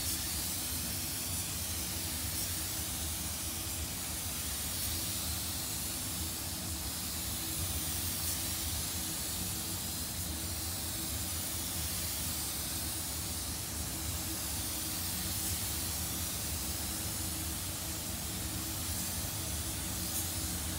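Compressed-air paint spray gun hissing steadily while laying a wet coat of basecoat, the hiss wavering slowly as the gun sweeps back and forth, with a steady low hum underneath.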